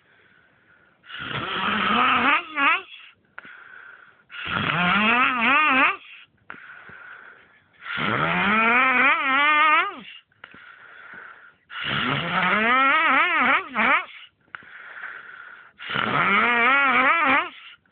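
A man snoring with a weird, warbling noise. There are five long, loud snores, each about two seconds, with a wavering pitch that climbs through each one. A quieter breathy sound comes between them.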